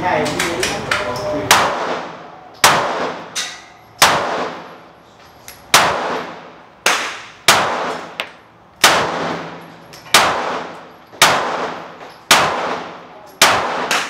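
Glock 17 9 mm pistol firing about ten single shots, one every second or so, each shot followed by a short ringing echo.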